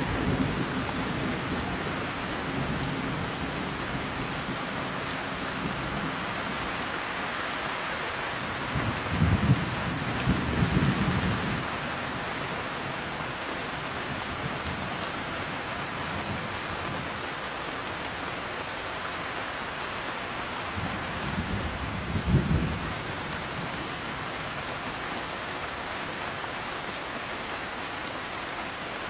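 Heavy rain falling steadily, with rolling thunder rumbling twice: about nine seconds in and again about twenty-two seconds in, after an earlier rumble dies away at the start.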